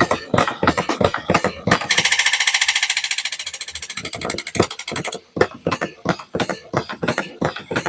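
Quick, irregular clicking and tapping, with a fast, even rattle lasting about three seconds starting about two seconds in.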